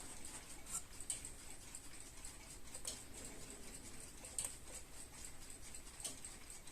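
Faint, irregular small clicks and taps, about five over several seconds, from the Kaiser tulip alarm clock being handled, over a faint steady hiss.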